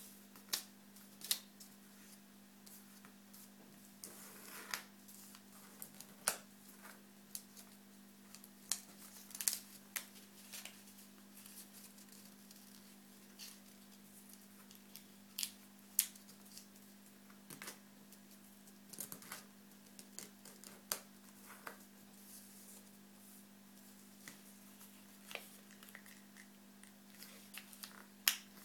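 Sheet of origami paper being folded and creased by hand: scattered crisp crinkles and taps at irregular intervals, over a steady low hum.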